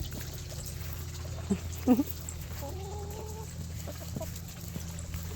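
Chickens clucking: a few short calls, the loudest about two seconds in, then a longer drawn-out call, over a steady low hum.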